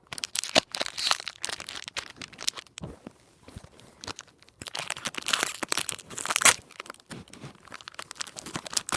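A foil Pokémon card booster pack being crinkled and torn open by hand: a run of papery crackles and tearing, loudest about a second in and again from about five to six and a half seconds.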